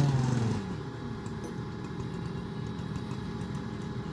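Crane truck's engine running at idle: a low, steady rumble. A louder pitched sound fades out in the first second.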